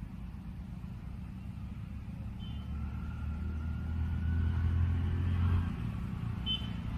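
Low motor rumble that grows louder over the middle and drops back about five and a half seconds in.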